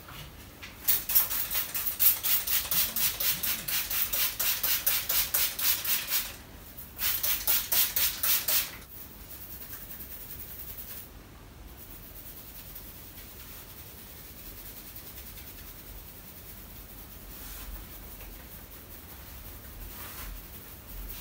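Fingers rubbing briskly through a person's hair on the scalp during a head massage, a fast, even scratchy rustle. It pauses briefly, resumes, and after a few more seconds drops to much softer, slower rubbing.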